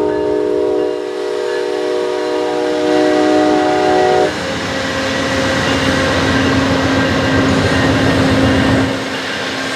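Amtrak Silver Meteor passenger train passing close by. The locomotive's multi-note horn chord sounds and cuts off sharply about four seconds in. After that comes the steady rumble of the passenger cars rolling past on the rails.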